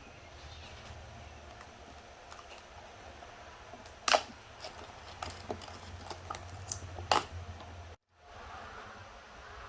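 Handling noises: light clicks and ticks with two sharp knocks, about four and seven seconds in, over a low steady hum.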